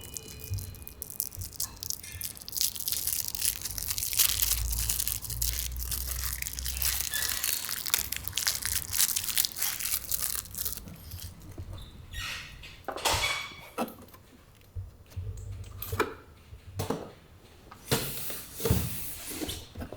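Packaging being torn and crumpled: a dense crackling for about the first ten seconds, then separate short rustles and knocks with quiet gaps between them.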